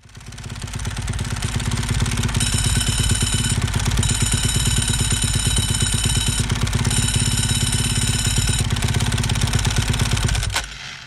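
Honda supermoto motorcycle engine running on a dyno with the open dry slipper clutch clattering, the dry-clutch rattle typical of Ducati superbikes, not a sign of an engine fault. A high whine comes and goes three times over the running engine, which stops abruptly near the end.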